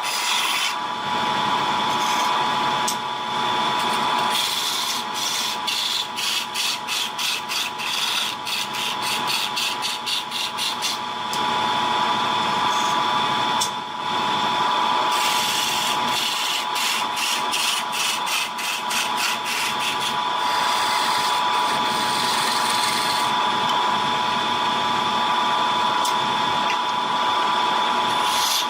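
Wood lathe running with a steady whine while a turning tool cuts the spinning wood, with two long stretches of rapid clicking.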